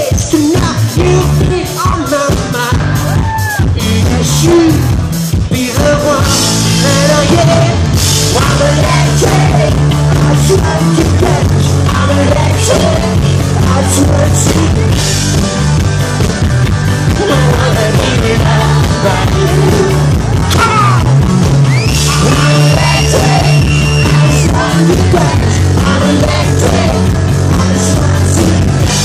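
A live rock band playing, with drum kit, bass and electric guitar, and a singer's voice over it at times.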